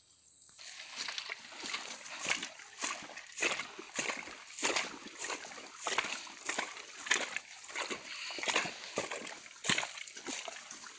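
Footsteps crunching and swishing along a path of dry grass and straw, in a steady walking rhythm of a little under two steps a second.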